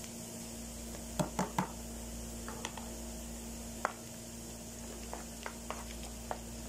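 Wooden spatula knocking and scraping in a non-stick frying pan as chopped garlic is stirred into oil: three sharp knocks a little over a second in, then scattered light taps, over a steady low hum.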